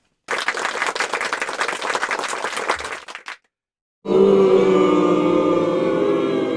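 A short burst of applause, many hands clapping, which stops after about three seconds. After a brief silence, a crowd's voices break out in loud cheering.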